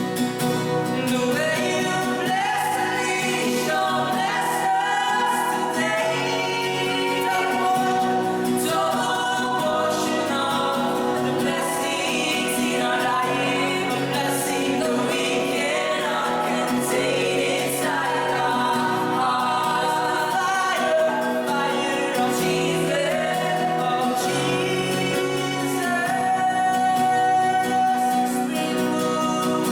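Gospel song sung by a group of voices with instrumental accompaniment.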